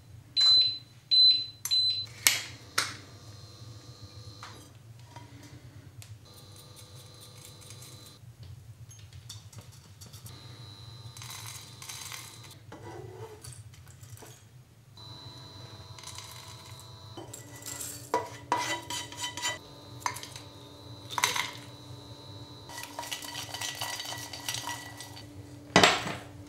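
A frying pan and dried insect larvae clattering on a glass-ceramic induction hob: the pan knocked, moved and set down, and larvae tipped from it into small glasses and bowls, with a few short high beeps from the hob's touch controls in the first two seconds. A faint steady hum runs underneath.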